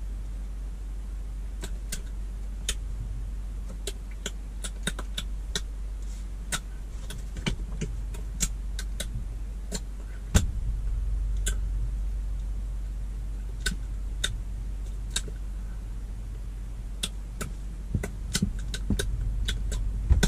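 Scattered sharp clicks and taps from hands signing and handling sheets of paper close to the microphone, over a steady low rumble in a car cabin. One tap about halfway through stands out as louder.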